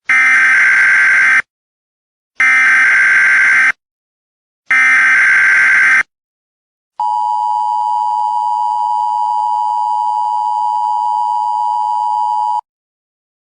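Electronic missile-warning alarm: three buzzing tones, each about a second and a half long with short gaps between them, then one steady, lower tone held for about five and a half seconds.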